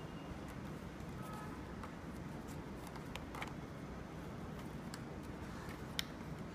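Faint clicks and rubbing as a plastic monitor is turned by hand to screw it onto its pole-mount bracket, with one sharper click near the end, over a low steady hum.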